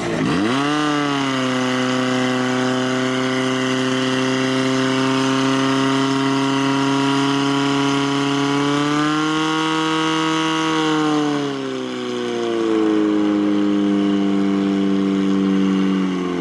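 Portable fire pump engine running hard at high revs, its pitch steady, then dropping to a lower speed about twelve seconds in as the throttle comes back.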